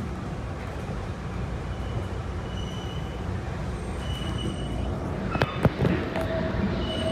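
PATH subway train in an underground station: a steady low rumble of the train, with a short high beep three times and a couple of sharp knocks about five and a half seconds in.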